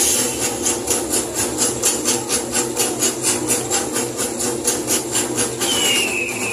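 Percussion-driven dance music with a fast, even beat of about four to five strikes a second, shaker- or tambourine-like on top. A high tone slides down in pitch near the end.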